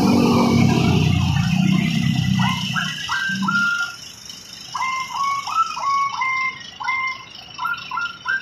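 Intercity coach's diesel engine running as the bus pulls slowly past, loud at first and fading away about four seconds in. From about three seconds in, a small bird chirps repeatedly, two or three short chirps a second.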